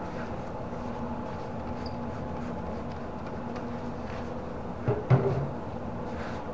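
A steady low hum, with a short pair of knocks, like something hard being handled or set down, about five seconds in.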